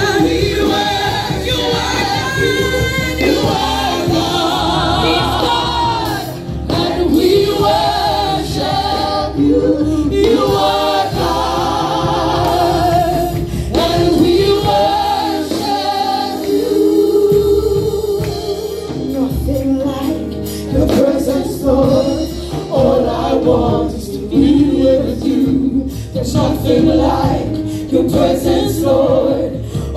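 Live gospel worship song: several women and men singing into microphones over keyboard and drums.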